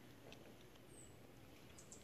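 Near silence, with a faint tick early on and one short, faint, high-pitched falling chirp about a second in.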